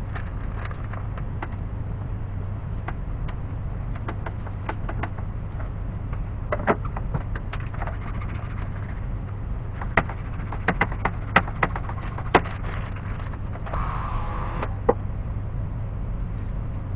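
Scattered light knocks and clicks of plywood panels and a cutter being handled on a workbench while self-adhesive vinyl sheet is applied, with a brief rustle about fourteen seconds in, over a steady low hum.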